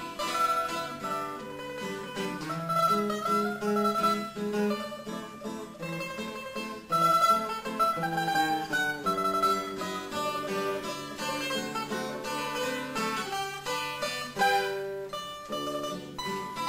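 A bowl-back mandolin and an acoustic guitar playing a waltz in A major together.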